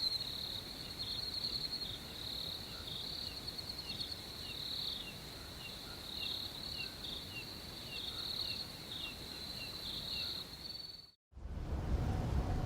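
Night insect chorus of crickets: a steady pulsing trill, with short falling chirps about twice a second. About eleven seconds in it cuts off abruptly, and after a moment of silence a low rumble begins.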